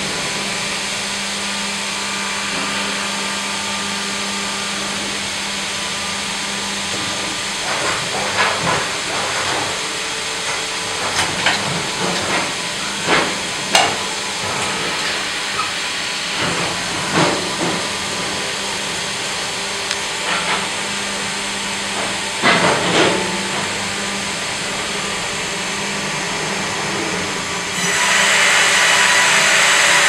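Sawmill machinery running steadily: a Fimaksan hydraulic vertical band saw and automatic log carriage. Through the middle there are a series of heavy knocks and clunks as a log is loaded and clamped onto the carriage. Near the end the band saw starts cutting the log, and a louder, steady hissing cut begins.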